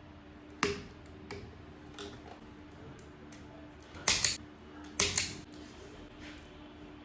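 Sharp clicks and clattering knocks of hardware and tools being handled while a fire alarm speaker is installed. There is a single click about half a second in and a few faint ticks, then two louder bursts of clatter around four and five seconds in.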